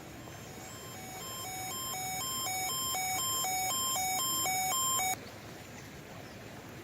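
Electronic two-tone alert signal, a harsh beep that alternates rapidly between a low and a high pitch. It swells in loudness and cuts off abruptly about five seconds in, over steady radio hiss.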